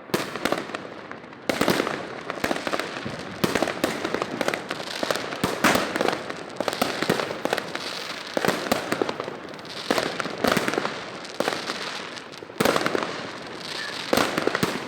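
New Year's fireworks going off: a dense, continuous run of cracking bursts and bangs, with sharper, louder bangs about a second and a half in and again near the end.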